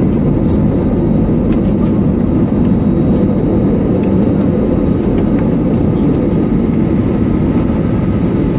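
Steady low roar inside an airliner's passenger cabin in flight: jet engine noise and rushing air, heard from a window seat.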